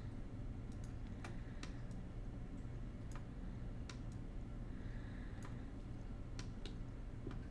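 Computer mouse clicking about ten times at irregular intervals, over a steady low hum.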